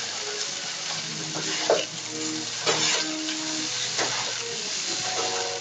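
Shredded vegetables sizzling as they are stir-fried in a pan, with the stirring utensil scraping and knocking against the pan about three times.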